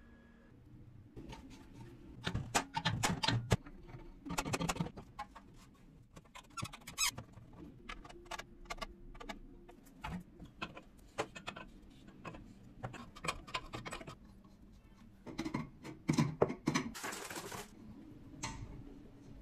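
Irregular clicks, knocks and scrapes of metal parts being handled and fitted onto a steel air-compressor tank, with a short hiss near the end.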